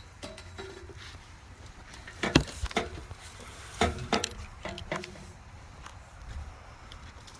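Two short runs of hard knocks and clatter, the first about two seconds in and the second about four seconds in, over a low background rumble.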